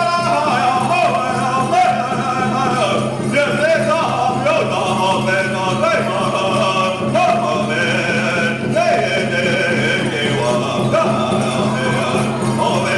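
A man singing a Native American hoop dance song in long phrases that slide up and down in pitch, keeping time on a hand drum.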